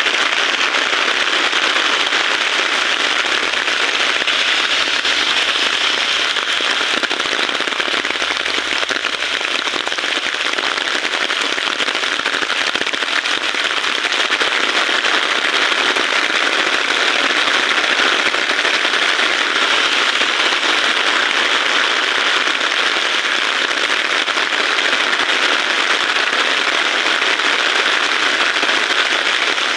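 Heavy rain falling steadily: a dense, even crackle of countless drops that does not let up.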